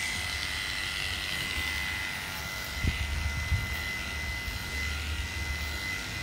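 Electric dog-grooming clippers fitted with a slip-on comb running steadily as they clip down a dog's leg, a high whine over a low buzz. A couple of brief knocks about three seconds in.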